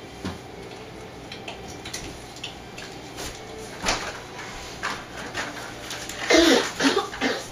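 Scattered light clicks and knocks of things being handled in a small room, with a short burst of voice about six seconds in.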